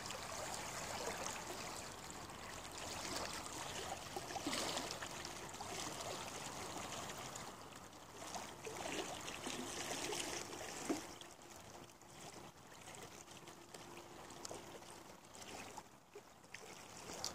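Steady rush of flowing river water, a continuous even hiss of moving current.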